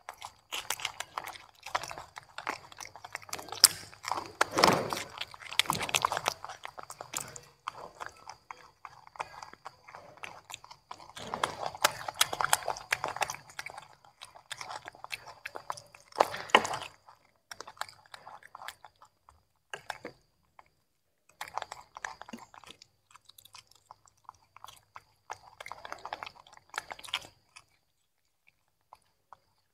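Young macaque monkeys chewing and biting pieces of broccoli and carrot: irregular bouts of wet, crunchy chewing, busiest in the first half and thinning out toward the end.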